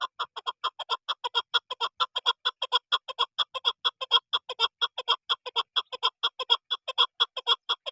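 Chukar partridge calling: a rapid, even series of short clucking notes, about five a second, kept up without a break.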